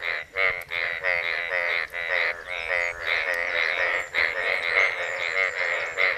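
A chorus of male Indian bullfrogs giving mating calls. Rapid, repeated croaking notes come about three a second and overlap with no pause, as the males inflate their paired vocal sacs to attract females.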